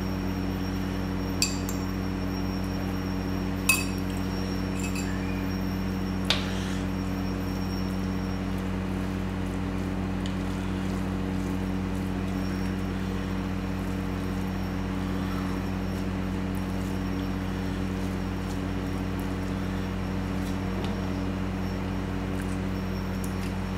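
Three sharp clinks of tableware in the first seven seconds, the middle one loudest, over a steady low hum.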